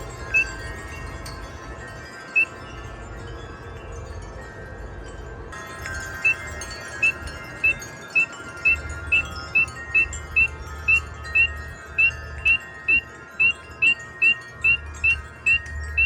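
A spring peeper calling with short, rising peeps: a couple spaced out, then a steady run of about two a second from about six seconds in. Under the peeps, wind chimes ring with sustained tones, freshly struck about five seconds in, over a low rumble of wind.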